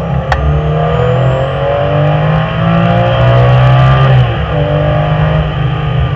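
Porsche 997 GT3 RS flat-six engine under hard acceleration, heard from inside the cabin: the revs climb steadily for about four seconds, fall at an upshift, then climb again. A sharp click comes just after the start.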